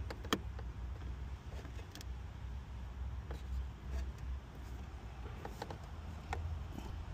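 Faint scattered clicks and scrapes of a small 7/32 ratchet wrench being fitted onto and worked on a small screw head, over a steady low rumble.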